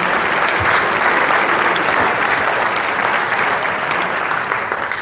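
Audience applauding, a steady spell of clapping that tapers off near the end.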